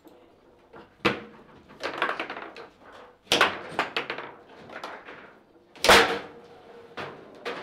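Foosball table rods being slid and worked, the players clacking against the table with rattling in between; three sharp knocks, the loudest about six seconds in.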